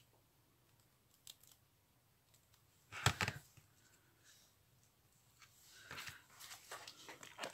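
Faint handling sounds on a craft table: a light click, then a short knock about three seconds in as a hot glue gun is set down on the cutting mat. Near the end, a few seconds of rustling and small clicks as the glue gun is moved over a clear plastic bag.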